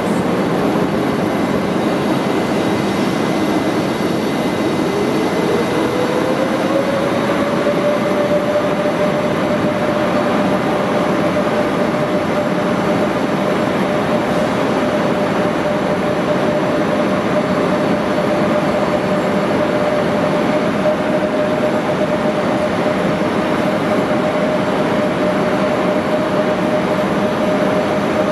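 Stationary electric trains running their cooling blowers, a steady loud hum. About four seconds in, a fan tone rises in pitch, then holds steady.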